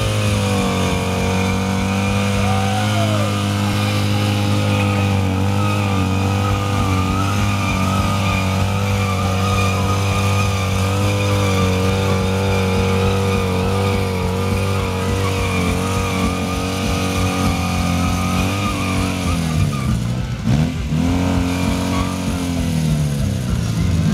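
Motorcycle engine held at high revs during a burnout, the rear tyre spinning on the asphalt. About nineteen seconds in the revs drop sharply, pick straight back up, and fall away again near the end.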